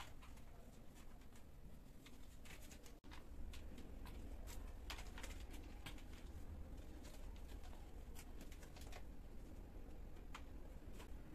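Kittens playing on a tiled floor: light scattered clicks and ticks of small paws and claws on tile and plastic, over a low steady hum. The sound cuts out for an instant about three seconds in.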